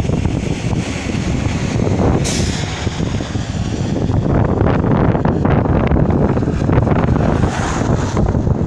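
Wind buffeting the phone's microphone in a loud, fluttering low rumble, with a brief hiss about two seconds in.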